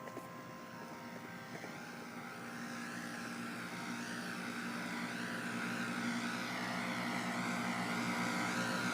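Engine of a grounds maintenance machine running and growing steadily louder, with a low steady hum and a wavering whine above it. The last ringing tones of chapel bells fade out in the first second.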